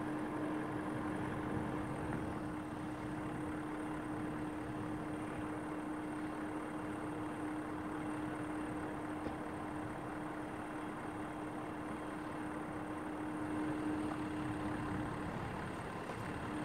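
Pacific National BL-class diesel-electric freight locomotives idling at a standstill: a steady engine drone with a constant pitched hum that drops out about a second before the end.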